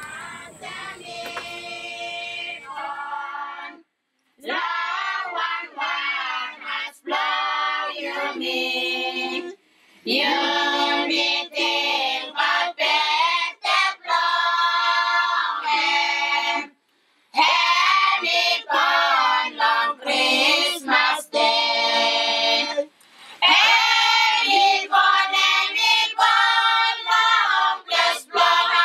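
A group of young voices singing a Christmas carol together, in phrases broken by short pauses every few seconds.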